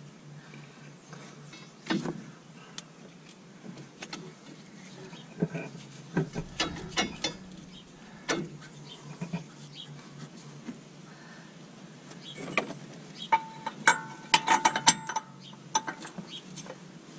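Scattered metal clinks and knocks of hand tools and the sway bar bushing bracket being worked on a pickup's front axle, with a denser run of bright ringing clinks near the end, over a low steady hum.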